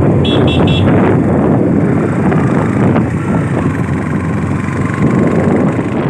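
Wind buffeting the microphone over the engine and road noise of a moving two-wheeler, with three quick high beeps just after the start.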